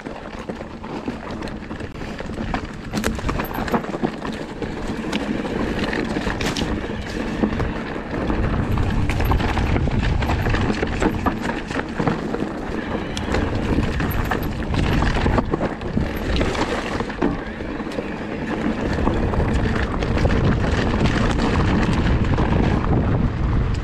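Electric enduro mountain bike (Lapierre GLP2) riding rocky singletrack: tyres running over stones with frequent clicks and rattles from the bike. Wind buffets the microphone, heavier from about eight seconds in.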